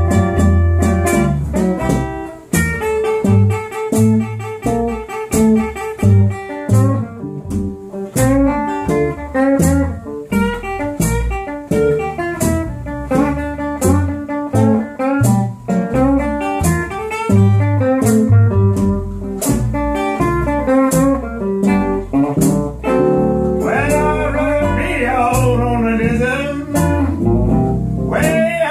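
A small band playing live: an upright double bass plucked under a guitar, with a steady beat of sharp clicks running through the music.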